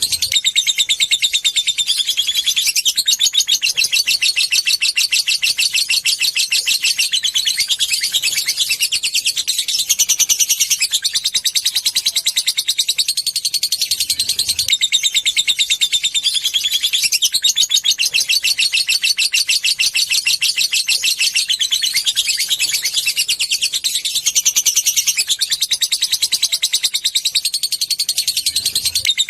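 Lovebird giving a rapid, shrill ticking chatter ('ngetik'), a continuous run of fast high notes in stretches of a few seconds with short breaks. This is a lure call meant to set other lovebirds off into long 'ngekek' chattering.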